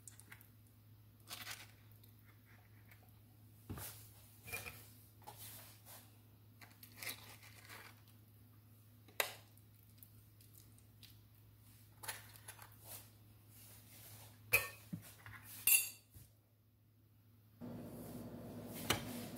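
Knife and metal spoon tapping, clinking and scraping on a plate as an avocado is cut and its flesh scooped out, in scattered light taps a second or so apart. A steady hum comes in near the end.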